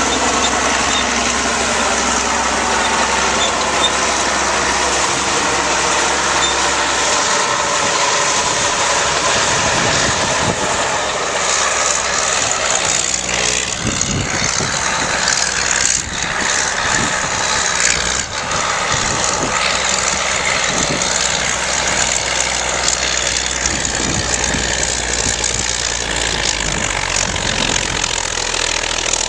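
Vintage Cat D8 crawler dozer's diesel engine running steadily while pushing dirt, its low drone shifting a few times, with scattered knocks and clanks around the middle.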